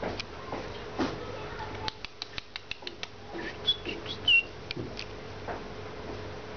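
A few short, high squeaks from a small animal, the loudest one about four seconds in, after a quick run of soft clicks, over a steady low hum.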